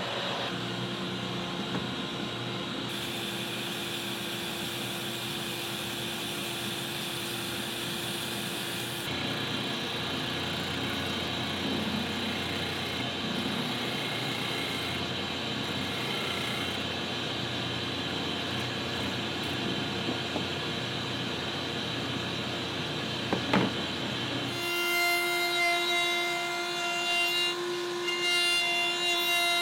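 Woodworking power tools running on wood in several abruptly cut segments, with a sharp knock shortly before the last cut, after which a machine with a steady high whine runs.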